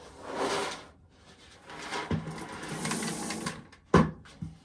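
Corn being shelled: a rushing rattle of kernels, then a longer stretch of mechanical rattling over a low hum, ending in a sharp knock about four seconds in.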